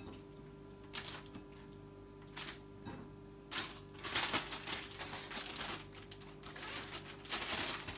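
Plastic zipper bag rustling a few separate times as pieces of catfish go in, then from about four seconds in a continuous crinkling as the bag of cornmeal and seasoning is shaken to coat the fish. A faint steady hum underneath.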